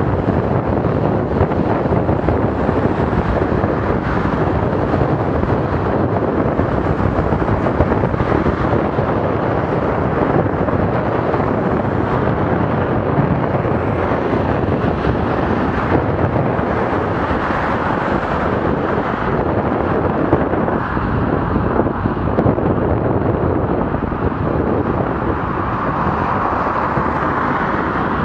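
Steady wind rushing over a bike-mounted camera's microphone while cycling, mixed with road noise.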